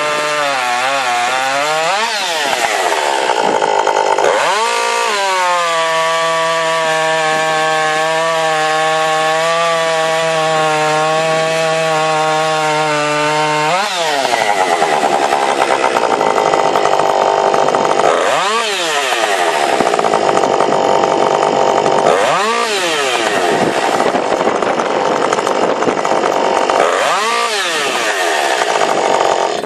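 Ported Jonsered 2260 two-stroke chainsaw running at high revs, revved up twice early on, then held at a steady pitch. From about halfway it runs rougher and noisier, as when cutting wood, its pitch dropping and climbing back three times.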